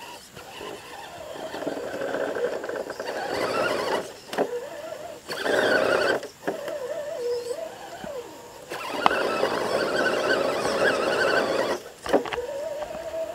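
Radio-controlled Chevy truck's motor and gears whining, the pitch gliding up and down as the throttle is worked. There are three louder stretches as it drives its tires through mud, the loudest about five to six seconds in.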